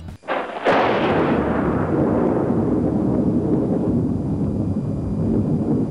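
An outro boom sound effect: a sudden explosion-like hit about half a second in, then a long low rumble.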